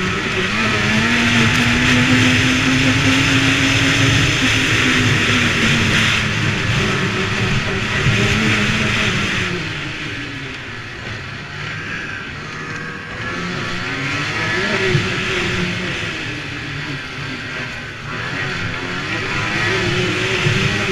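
Snowmobile engine running under throttle, its pitch climbing over the first few seconds, falling away and going quieter about ten seconds in, then rising again a few seconds later and near the end, over a steady hiss.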